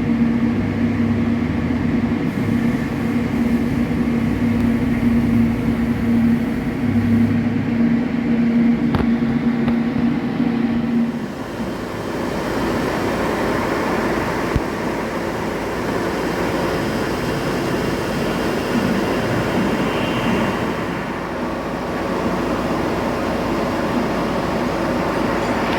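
TIG welding on mild steel: a steady arc hiss with a constant low hum. The hum drops out about eleven seconds in, leaving a broader, even hiss.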